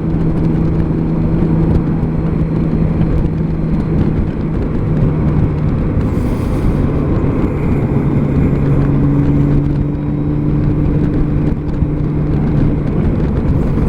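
2003 Honda Gold Wing's flat-six engine running at a steady riding speed, its hum shifting slightly in pitch now and then, under steady wind and road noise.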